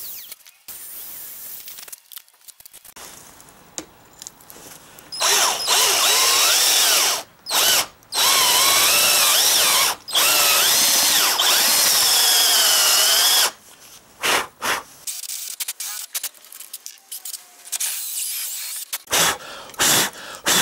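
Power drill boring a long bit into the end grain of a maple table leg, for a leveling-foot hole. After about five seconds of quieter handling, the drill runs for roughly eight seconds with a few short stops, its whine rising and falling with motor speed. A few short bursts of drilling come near the end.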